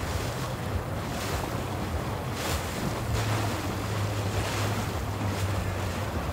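Boat engine running with a low, steady hum as the boat moves through the water, with water rushing and wind noise on the microphone. The engine hum grows stronger about three seconds in.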